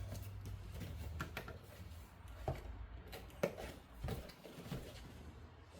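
A handful of light clicks and knocks, spread out, from small parts of a photography lighting kit being handled and unpacked, over a low steady hum.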